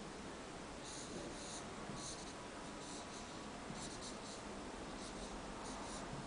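An Edding felt-tip marker drawing on paper: about six short scratchy strokes, roughly one a second.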